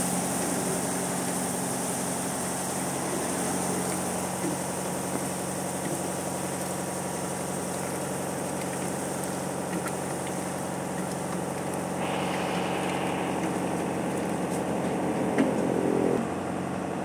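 Chickpea curry sizzling and bubbling on a large hot iron griddle over a constant mechanical hum. Near the end it gets louder as water is poured from a steel mug onto the hot griddle.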